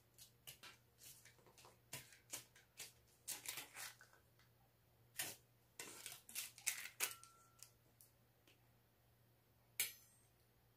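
Light clicks and taps of small metal dalgona tools, a flat press and a shape cutter, being set down, lifted and pressed on a disc of hardening sugar candy. They come in an irregular cluster through the first seven seconds or so, then one sharp click near the end, over a faint steady hum.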